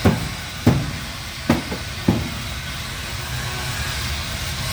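Four sharp knocks in the first two seconds, over a steady hiss and low hum.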